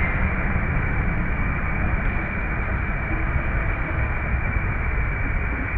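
Wind buffeting the microphone: a steady rushing hiss over a flickering low rumble, with no distinct events.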